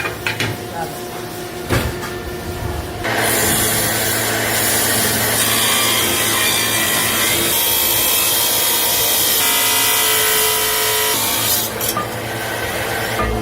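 A power tool working steel: a loud, steady grinding noise starts about three seconds in and stops shortly before the end, over a low factory hum and a few metal clinks.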